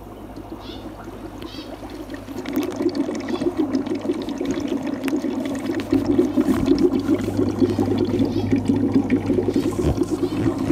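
Aquarium sponge filter bubbling: a steady stream of air bubbles gurgling up the lift tube, over a low steady hum. The bubbling grows louder about two seconds in and again about six seconds in.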